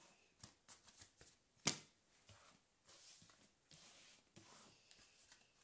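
Faint sliding and rustling of oracle cards being swept together and gathered up by hand on a cloth-covered table, with light taps and one sharper click about a second and a half in.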